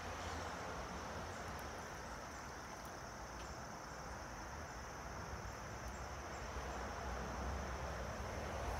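Quiet outdoor ambience: a steady high-pitched chirring like insects, over a low constant background rumble.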